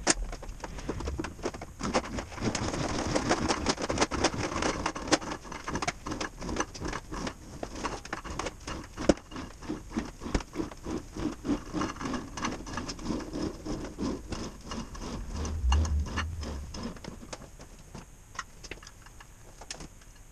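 Steel wire rope being pulled off the drum of a Sherpa Stallion 25,000 lb winch: a dense, uneven run of clicks, rattles and knocks as the cable uncoils and drops onto the concrete floor, thinning out near the end.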